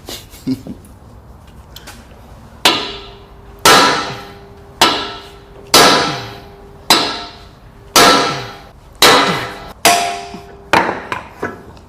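About nine heavy hammer blows on steel, roughly one a second and starting a couple of seconds in, each ringing on afterwards. The blows fall on a Land Rover's lower control arm during a bushing replacement.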